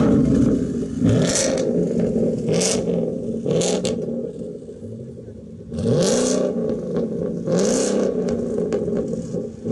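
Ford Mustang V8 with a loud aftermarket exhaust, revved in about five quick blips, each rising and falling in pitch, with a quieter idle lull in the middle.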